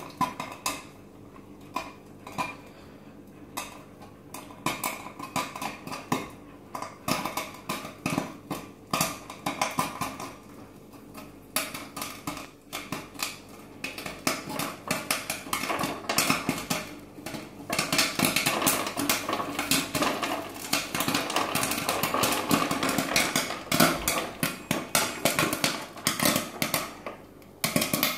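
Popcorn kernels popping in the stainless-steel kettle of a tabletop theatre-style popcorn machine. Scattered pops at first, building to rapid, dense popping from a little past halfway, over the machine's steady hum.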